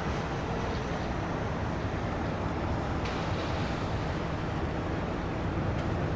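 Steady low rumble of distant jet airliner engines.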